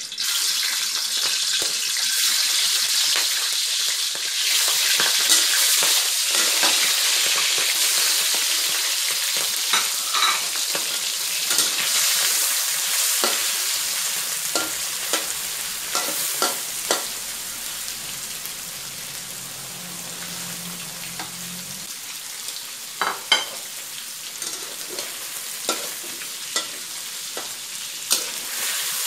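Raw shrimp sizzling in hot oil in a wok, with a metal wok spatula scraping and clacking against the pan as they are stir-fried. The sizzle starts loud as the shrimp go in and slowly dies down as they cook.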